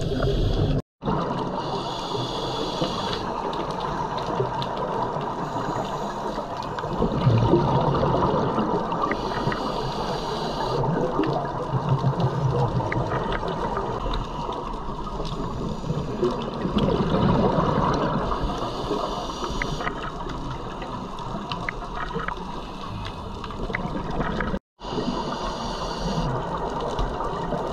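Scuba diver breathing underwater through a regulator: hissing inhalations alternating every few seconds with rushing, bubbling exhalations.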